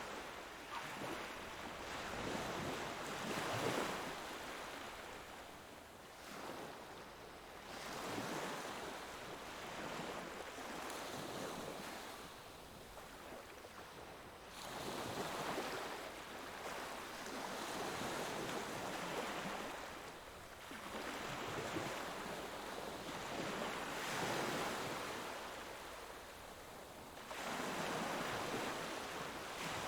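Ocean waves breaking and washing ashore, a hiss of surf that swells and falls back every few seconds.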